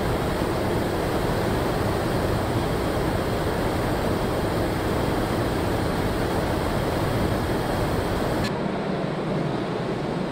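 Car-factory ambience: a steady, even rush of noise with no distinct events. About eight seconds in it changes abruptly to a duller hum with much less hiss.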